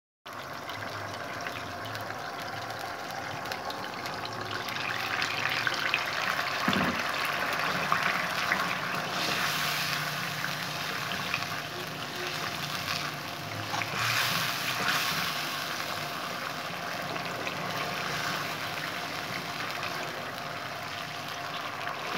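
Red Manchurian sauce simmering in a nonstick wok, a steady bubbling crackle while a metal spoon stirs through it, louder for stretches in the middle.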